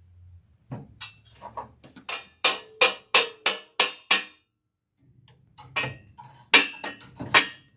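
Hammer blows on metal, with a short ring after each strike: a run of quick blows at about three a second, a pause of about a second, then a second run.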